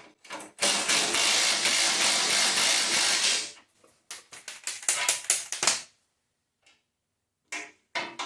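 Hand socket ratchet clicking as a lock nut is turned off a bolt on the tractor's fender pan. A dense, fast rattle lasts about three seconds, then a run of separate, slower clicks, then a few more clicks near the end.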